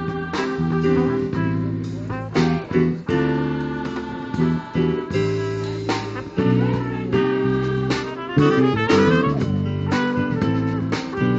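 Live band music played on electric bass, keyboard and drum kit, with steady drum hits under sustained chords.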